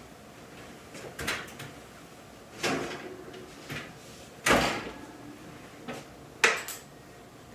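Wall oven door opened and a metal baking sheet pulled out: a few separate knocks and scrapes, a heavy thud about halfway through as the oven door shuts, then a sharp clack as the tray is set down on the stone counter.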